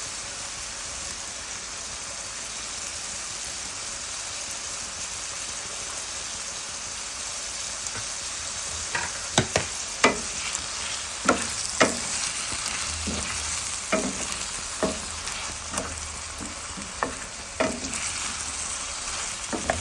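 Potatoes and vegetables sizzling steadily in hot oil in a skillet. From about halfway through, a spoon stirs them and clacks sharply against the pan about once a second.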